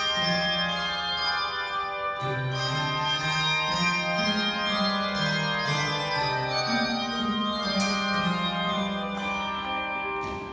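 Handbell choir playing a swing-style jazz piece: many tuned handbells ringing in sustained chords over a line of low bass-bell notes that steps from note to note.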